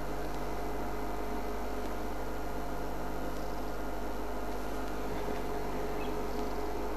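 Steady hiss with a constant low hum and a few faint steady tones, unchanging throughout; no distinct animal or footstep sound stands out.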